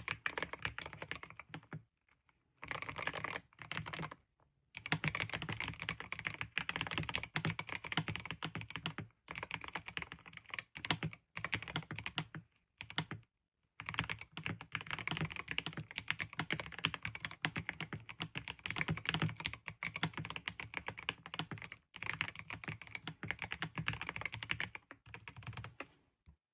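Continuous typing on a Yunzii C68 mechanical keyboard with Yunzii Cocoa Cream linear switches: a dense run of key clacks, broken by a few short pauses.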